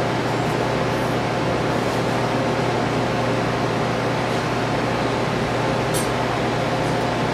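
Café espresso machine pulling a shot: the pump hums steadily under a hiss of water being forced through the coffee, with a faint click about six seconds in.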